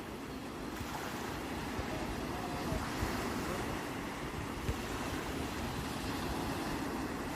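Sea waves washing onto the shore in a steady rush of surf, swelling about a second in, with some wind buffeting the microphone.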